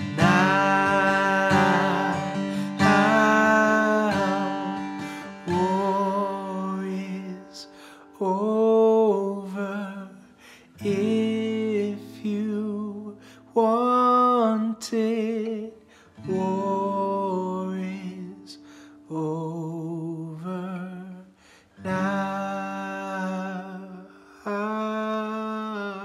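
Acoustic band music without words: guitar accompaniment under a slow melody of held notes with vibrato, in short phrases. The music stops just before the end.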